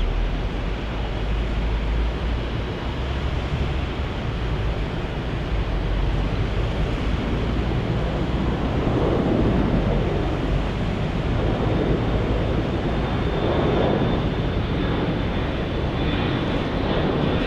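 Jet airliner engines running as the aircraft moves past, a steady rush with swells partway through and a faint high whine joining near the end.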